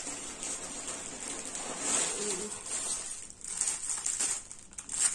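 Plastic packaging rustling and crinkling in irregular surges as a clear plastic bag holding a fabric pouch is handled and lifted out of a parcel.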